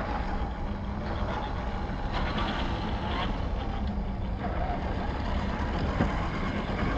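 Electric motor and gear drivetrain of a 1/10-scale Boomracing D90 RC crawler whirring at crawling speed, its tyres crunching over loose dirt and gravel. A steady low hum runs underneath, and there is a single click near the end.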